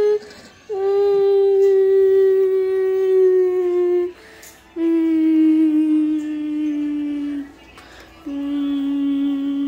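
A high voice humming long held notes, each about three seconds with a short breath between, each a little lower in pitch than the last.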